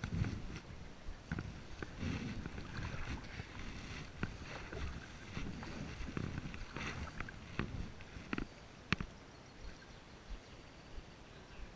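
Kayak paddling: the blades of a double-bladed paddle dip and splash in calm water, with dripping and a few light knocks, including one sharp click about nine seconds in.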